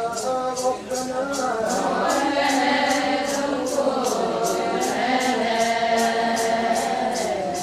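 Adi women singing a Ponung song together as a chorus: a unison chant of held notes that slide from one pitch to the next. A sharp high rattle keeps a steady beat about three times a second over the singing.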